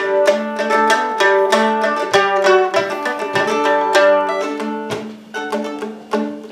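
Mandolin solo: a quick run of picked notes.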